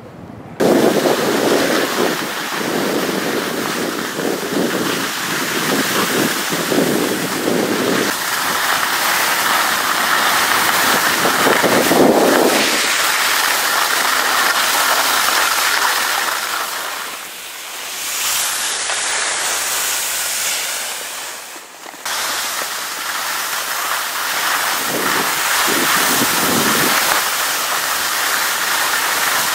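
Wind rushing over the microphone and skis scraping on snow during a downhill ski run: a loud, steady rush that starts suddenly about half a second in. It swells with rougher scraping stretches and drops briefly twice near the middle.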